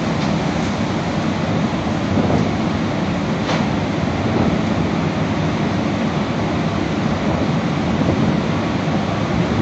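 Autobase automatic car wash machine running, its brushes spinning against a car amid water spray, making a steady, heavy rumble. A brief tick sounds about three and a half seconds in.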